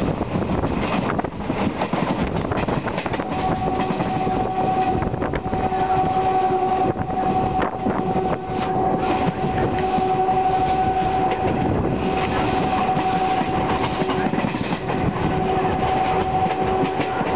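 Indian Railways express train hauled by a WDM-2A diesel locomotive running at speed, wheels clattering over the rail joints. From about three seconds in, a long steady horn sounds over the running noise, broken by a few short gaps.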